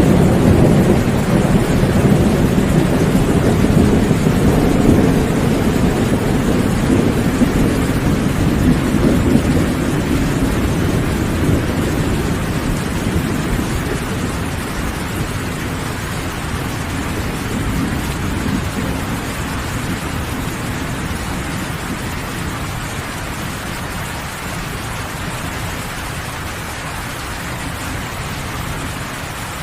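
Steady heavy rain with a long roll of thunder, a low rumble that slowly dies away over the second half, leaving the rain alone.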